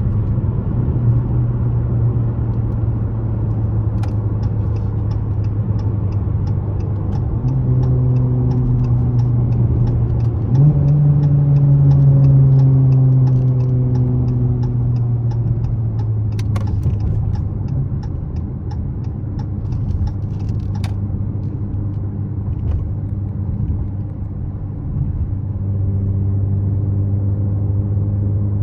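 Dodge Challenger SXT's V6 running through BigBoz 5 rear mufflers while cruising: a steady low exhaust drone that rises in pitch as the car speeds up about a third of the way in, then settles back. A faint ticking about twice a second runs through the middle.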